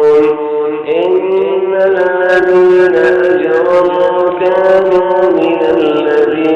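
A man's voice chanting in long, held, slowly gliding melodic notes, in the manner of a drawn-out Quran recitation.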